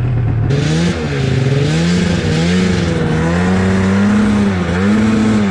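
Snowmobile engine running under throttle through deep snow, its revs rising and falling several times. A steady hiss comes in about half a second in.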